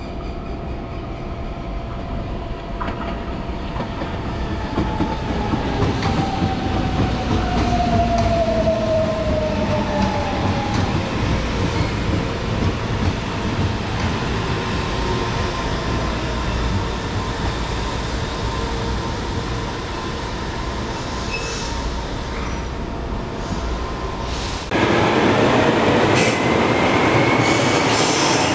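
Electric metro train running, its motor whine falling in pitch over several seconds. About 25 s in the sound changes abruptly to a louder train with a whine rising in pitch, as a train picks up speed.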